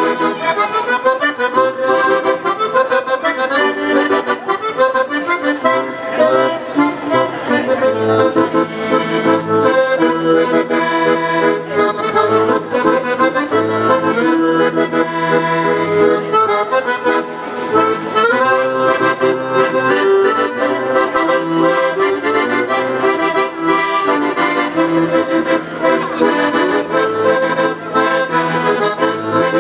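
Piano accordion played solo: a busy melody of quick notes over a regular bass pulse.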